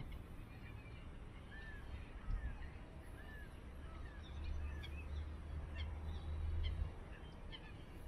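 Distant waterbirds calling from the wetland in many short, arched notes. A low rumble swells for a few seconds in the middle.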